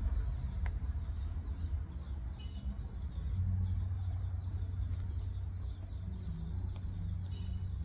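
An insect chirping steadily in a high, fast, even pulse, over a low steady rumble.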